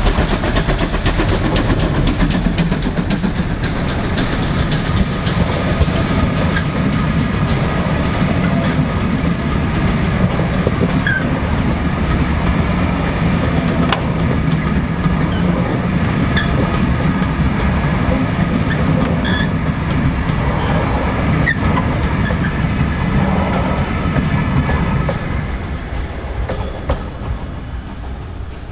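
Two steam tank engines, GWR 813 and 7714, double-heading a passenger train pass close by with rapid, sharp exhaust beats. The coaches then roll past with a steady clickety-clack of wheels over the rail joints, fading near the end as the train draws away.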